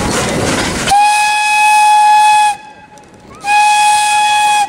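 Steam locomotive whistle blowing two long blasts on one steady note, the first about a second and a half, the second a little shorter after a brief pause. Before the whistle, a loud rushing noise cuts off suddenly about a second in.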